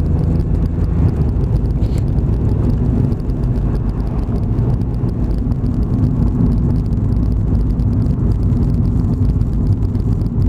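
Vehicle engine and road noise while driving: a steady, loud low rumble.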